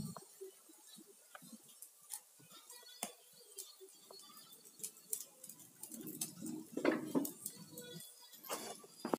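Scattered light clinks and knocks of kitchen dishes and utensils, with a louder clatter about seven seconds in.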